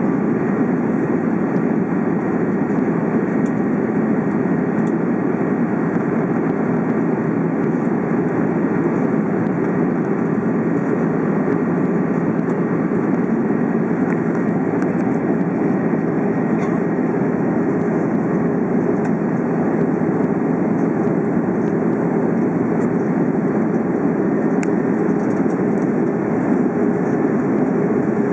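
Steady engine and airflow noise inside the cabin of an Airbus A330 airliner in flight during the climb-out. It is an even, unbroken rumble with no changes in level.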